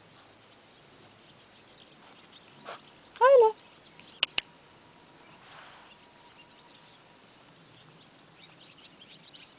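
A puppy gives one short, high yelp that rises and falls in pitch, about three seconds in, followed a second later by two sharp clicks close together; otherwise only faint background hiss.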